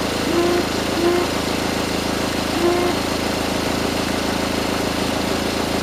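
Car engine idling steadily, with a few brief tonal blips near the start and about two and a half seconds in.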